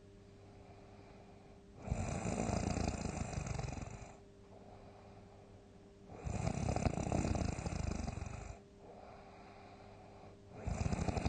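A person snoring loudly in sleep: three long snores of about two seconds each, coming every four to five seconds, with quieter breathing between them.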